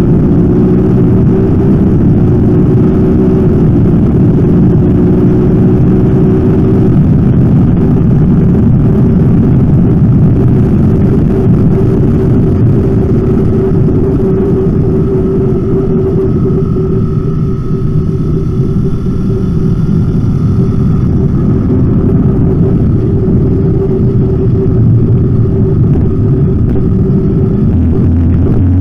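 Motorcycle engine running hard at track speed, heard from an onboard camera under heavy wind rush; the engine note rises and falls with throttle and gear changes, easing off around the middle before picking up again.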